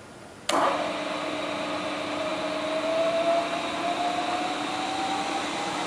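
Spindle motor of a 3 HP Chevalier vertical milling machine switched on about half a second in and running with a steady whir. Its whine rises slowly in pitch as the variable spindle speed is turned up.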